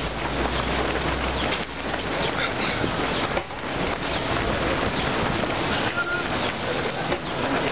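Footfalls of a dense crowd of runners on an asphalt road, merging into a steady rush of many quick footsteps, with scattered voices mixed in.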